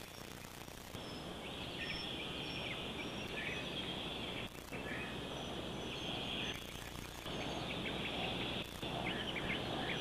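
Woodland ambience: a high, hissing buzz that comes and goes in stretches of a second or two, with faint short high chirps of small birds.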